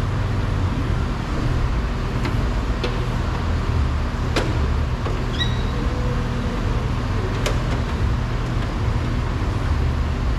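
Steady low rumble with four or five sharp clicks and snaps, as the rubber glass run channel is worked out of a pickup truck's rear door frame.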